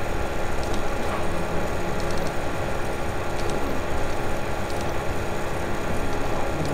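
Steady background hum of a running fan or machine, with a few faint computer mouse clicks.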